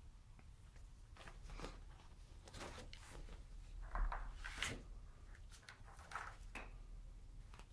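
Faint, scattered rustles and scuffs of Birman kittens playing on a quilted blanket, with a louder bump and rustle about four seconds in.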